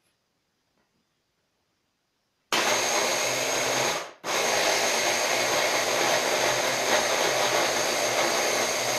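Electric hand blender with a chopper bowl attachment starting up about two and a half seconds in and running steadily, chopping parsley packed with a little vegetable oil into a paste. The motor stops for a moment about four seconds in and starts again at once.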